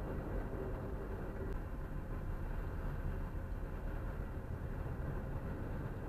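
Steady road and engine noise of a car driving at speed, heard from inside the cabin, mostly low-pitched and even.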